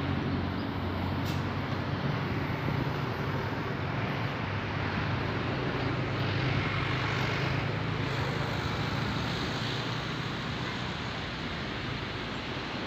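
Steady road traffic noise: vehicles running by on a nearby road, a low hum of engines under a constant hiss.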